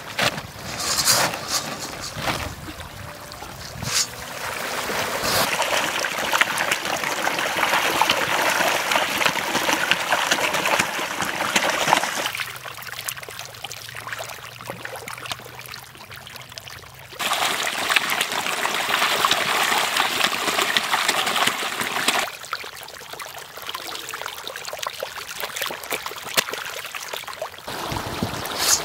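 A crowd of tilapia splashing and churning at the pond surface in a feeding frenzy as they rush the feed pellets: a continuous watery splashing that drops away and comes back abruptly a few times.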